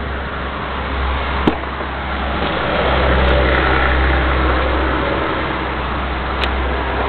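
Car door latch clicking about a second and a half in as the Alfa Romeo GTV's door is opened, with another light click near the end. A steady low rumble runs underneath and gets louder once the door is open.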